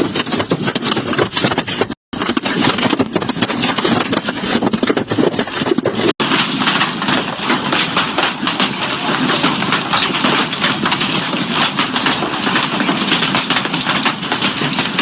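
Heavy hail and rain pelting down: a dense, steady rattle of hailstones striking hard surfaces. The sound breaks off abruptly twice, about 2 and 6 seconds in.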